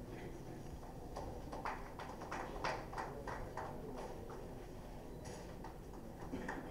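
A quick run of light, sharp clicks, about four or five a second, from about a second in until past the middle, with a few more near the end, over a low steady room hum.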